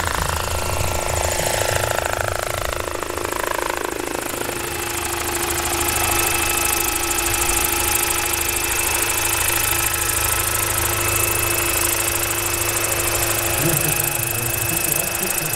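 Large electric RC scale model helicopter, a Bell 206 JetRanger with a 3.37 m main rotor, flying. The whine of its electric drive falls in pitch over the first four seconds and then holds steady, over a low, pulsing beat from the rotor blades.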